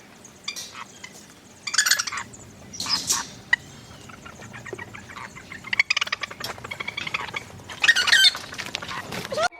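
Chickens calling: a hen and her young chicks giving several short, high calls in separate bursts, the loudest around two, three and eight seconds in.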